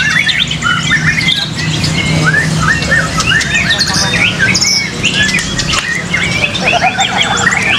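Several white-rumped shamas (murai batu) singing at once: a dense, unbroken stream of overlapping whistles, rising and falling chirps and trills.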